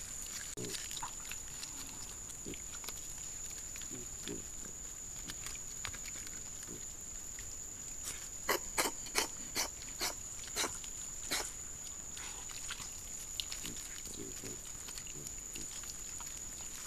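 Wild boar sow and piglets at a mud wallow: scattered soft low grunts, then, about halfway through, a quick run of about eight short, loud calls over roughly three seconds.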